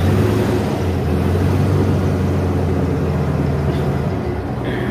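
Airboat engine and propeller running steadily as the boat travels, a loud, even low drone with rushing noise over it.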